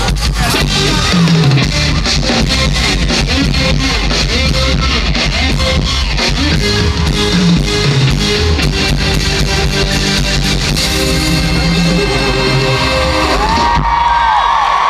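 Live band playing loud, with a drum kit beating a steady rhythm under electric guitar. The band thins out near the end.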